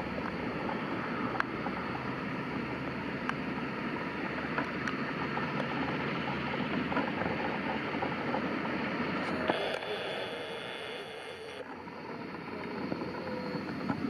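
Distant jet airliner taking off on a wet runway: a steady rushing roar of the engines and spray, which dips for a couple of seconds about ten seconds in as the plane climbs away.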